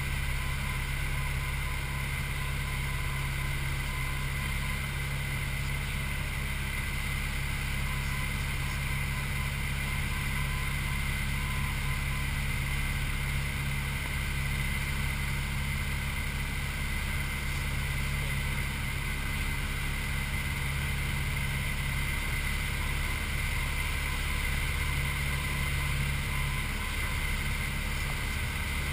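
Light piston aircraft's engine and propeller running steadily at cruise power, heard from inside the cockpit as an even drone with a steady hum.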